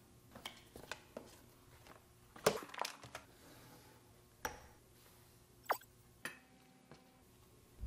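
Light handling sounds of a chef's knife in its sheath: scattered soft clicks and knocks as it is set on a wooden end-grain cutting board and the blade is drawn out of the sheath. The loudest knock comes about two and a half seconds in.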